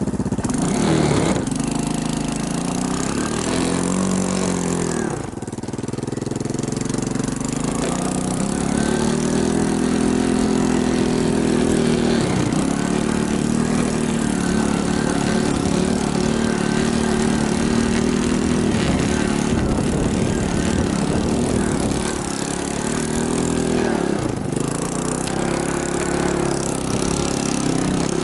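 Small engine under way, revving up and settling back several times as it changes speed, with a longer steady run in the middle.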